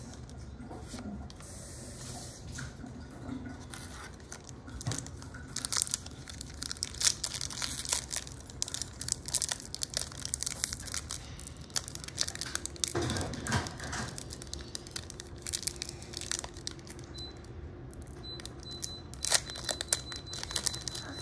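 Foil Pokémon booster pack wrappers being crinkled and torn open by hand, a dense crackling that gets going about six seconds in.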